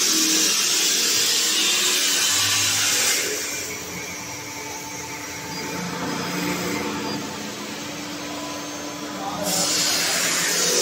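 TPE glove injection-moulding machine running: a steady machine hum with a hiss that cuts off suddenly about three seconds in and comes back shortly before the end.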